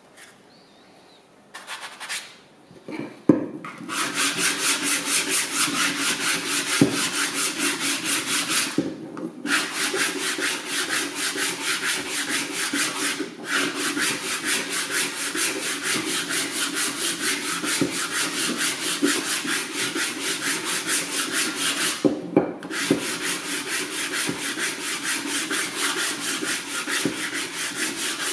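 Sandpaper on a hand sanding block rubbed back and forth along a small strip of wood: a steady scraping in quick, even strokes, about three to four a second. It starts after a few light knocks as the block is set down, and stops briefly a few times.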